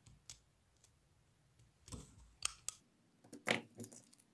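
Faint scattered clicks and crinkles of a clear plastic sheet and small rhinestones being handled and pressed between fingers. The loudest tick comes about three and a half seconds in.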